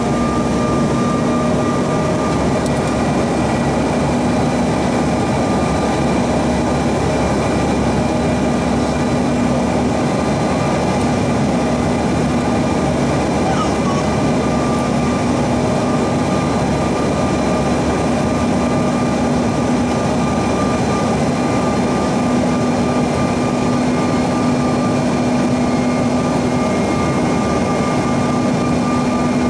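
Cabin noise of a Bombardier CRJ-900 on approach with flaps extended: a steady rush of airflow and its rear-mounted GE CF34 turbofans running, with a few steady whining tones over it.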